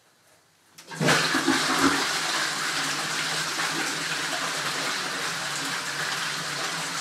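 Bathroom sink tap turned on about a second in, water running steadily into the basin.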